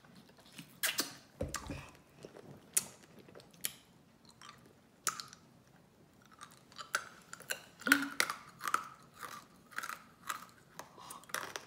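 A child chewing sour candy close to the microphone: irregular wet clicks and smacks, coming thicker in the second half, with one low thump about a second and a half in.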